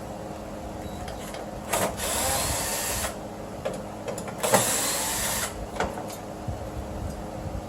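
The two plastic electrical connectors for the power-window switches being unplugged, twice: each a sharp click followed by about a second of rustling, scraping plastic noise.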